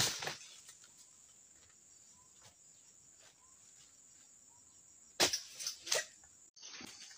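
Sharp snapping cracks of undergrowth and dry fronds being broken: one at the start, then four in quick succession about five seconds in. In the quiet between, faint short chirps come about once a second. The sound drops out abruptly near the end.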